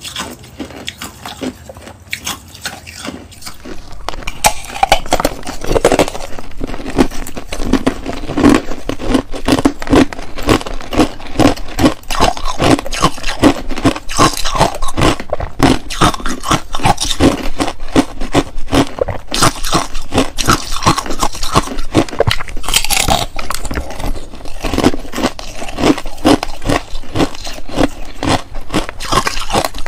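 Ice being bitten and crunched: dense runs of sharp cracking crunches, starting about four seconds in after a few quieter seconds of ice cubes being scraped and clinked.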